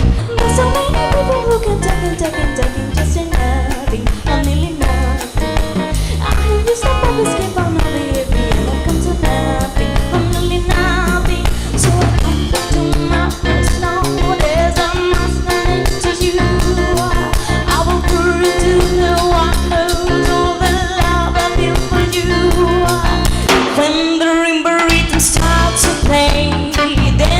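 Live band playing lounge music: drum kit, bass and guitar under a singer's melody. The bass and drums drop out for about a second near the end.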